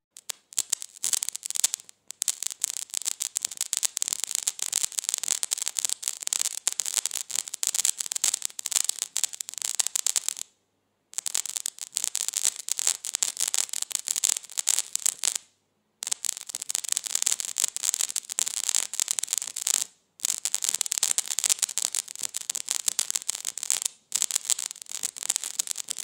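Electric sparking sound effect: a dense, rapid, high-pitched crackle of sparks, cut off by brief silences about four times.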